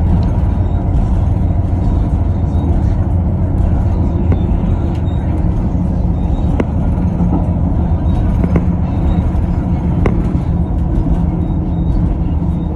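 Tyne and Wear Metro train running along the line: a steady low rumble, with a few sharp clicks from the wheels over the rails.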